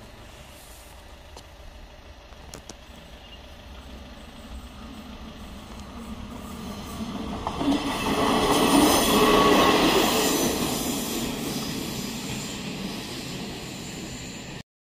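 A yellow-and-green ČD diesel railcar passing over a level crossing close by: the running engine and the wheels on the rails build up, peak about eight to ten seconds in as it crosses, then fade as it moves away. The sound cuts off suddenly near the end.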